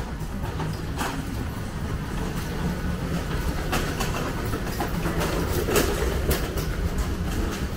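Train running over the railway viaduct overhead, heard from underneath: a steady low rumble with scattered sharp clacks.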